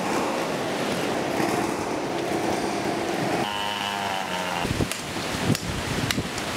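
Steady wind and rain noise with an engine droning under it. Near the end come a few sharp knocks: a machete chopping into fallen pine branches.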